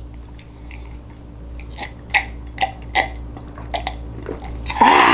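Close-miked mouth sounds of eating canned Spam: wet chewing with scattered short smacks and clicks, then a louder vocal sound near the end.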